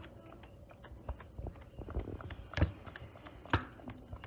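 Hand-cranked rotary egg beater working thick batter in a plastic bowl: irregular clicking and rattling from the gears and beaters, with a few sharper knocks as the beaters hit the bowl.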